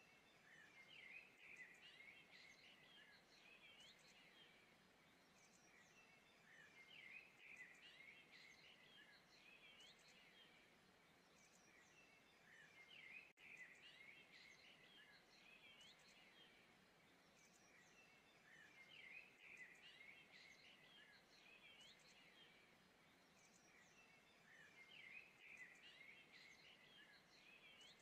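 Faint bird chirping over a low steady hiss, in clusters of quick chirps that come back about every six seconds.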